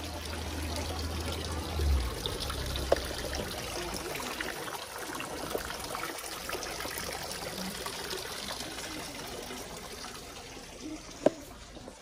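Water trickling steadily, with a few faint clicks. A low hum stops about three and a half seconds in.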